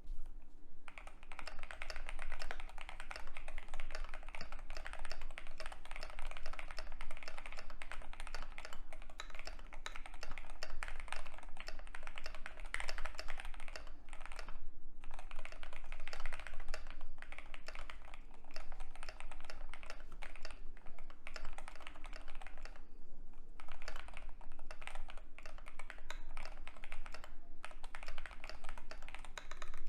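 Fast, continuous typing on a custom Keychron Q2 65% gasket-mounted keyboard: lubed Durock POM linear switches under PBT XDA keycaps, with a steel plate and foam-filled case. Dense keystroke clacks, broken by a couple of brief pauses midway.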